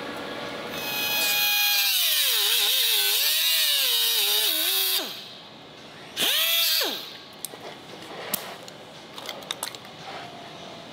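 Pneumatic grinder spinning up to a high whine about a second in, its pitch dipping and wavering under load, then winding down near five seconds. A second short burst follows just after six seconds, then a few light clicks and taps.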